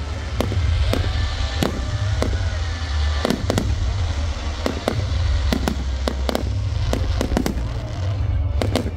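Fireworks display: a rapid, irregular volley of sharp bangs and cracks, about two a second, from shells and comets launching and bursting, over a continuous deep rumble.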